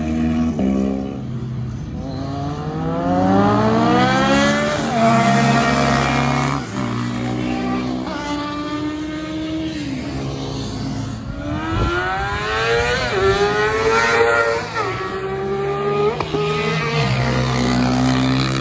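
Several sport motorcycles accelerate past on a race track, their engines climbing in pitch through the revs with a sharp drop at each upshift, repeated over and over.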